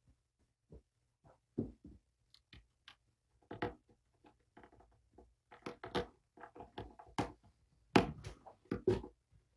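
Kittens scrambling over a man's lap and legs: an irregular string of scratches, rustles and light thumps that grows busier partway through, with the loudest thumps about eight seconds in.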